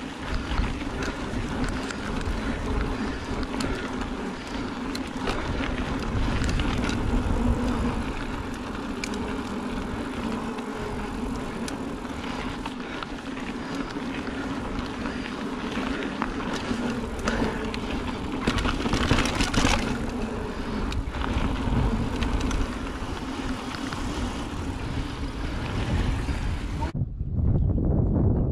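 Mountain bike rolling fast down a dirt trail: tyres running over the dirt with a steady noisy hum, and frequent clicks and rattles from the bike over bumps. Near the end the sound suddenly turns into a dull low rumble.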